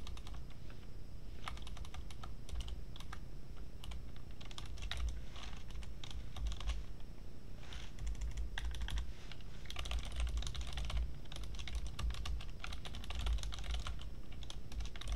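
Typing on a computer keyboard: irregular runs of keystrokes with short pauses between them.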